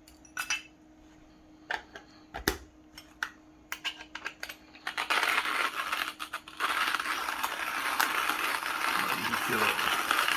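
Scattered clicks and knocks as the hand-cranked CUG coffee grinder is handled and set. Then, about five seconds in, a steady gritty crunching begins as its stainless steel burr grinds coffee beans at its finest setting.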